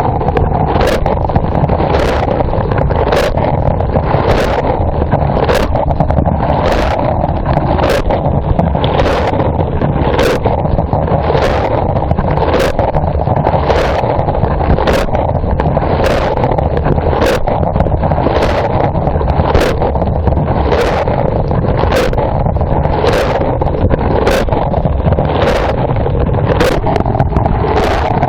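Dishwasher in its wash cycle, heard from inside the tub: a steady rush of spraying water over the wash pump's hum, with a sharp splash about every three-quarters of a second as the rotating spray arm's jet sweeps over the microphone.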